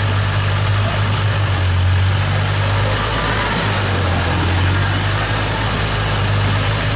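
Motorboat engine running steadily at cruising speed as a low, even hum, with water rushing along the hull.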